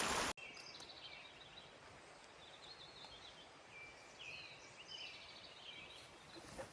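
Faint birdsong: short chirping phrases repeated over quiet outdoor background. Rushing creek water is loud for a moment at the start, then cuts off abruptly.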